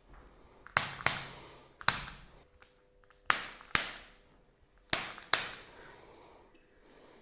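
Chiropractic Activator adjusting instrument firing: about seven sharp spring-loaded clicks, mostly in quick pairs, each dying away briefly.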